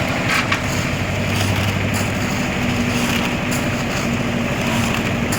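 A motor running steadily with a low hum, with a few sharp clicks about half a second in.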